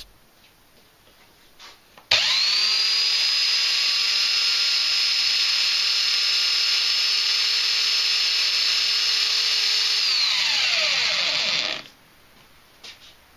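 Powerplus handheld belt sander, mounted upside down in a bench jig, switched on about two seconds in: its motor spins up quickly to a steady high whine and runs unloaded for about eight seconds, then is switched off and winds down with a falling pitch, stopping shortly before the end.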